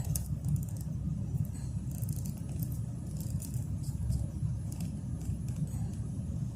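Faint scraping and light clicks of a plastic zip tie being fished under a rear seat belt's elastic and slid along a pen, over a steady low rumble.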